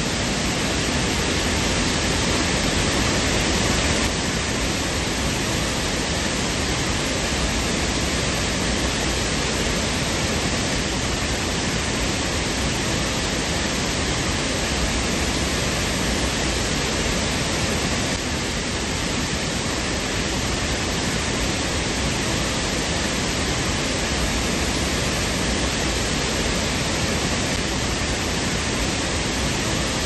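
Steady rushing of a waterfall: water pouring over a dam wall and crashing onto the rocks and pool below. It is an even, unbroken noise with slight changes in level about 4 and 18 seconds in.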